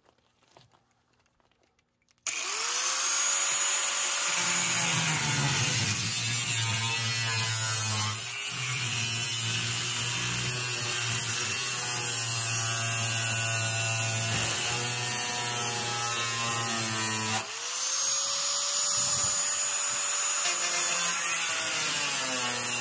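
Corded angle grinder with a cut-off wheel starting about two seconds in with a rising whine as it spins up, then cutting through the rusty sheet steel of a wheelbarrow tub. Near the end it stops and is straight away switched on again, spinning up once more.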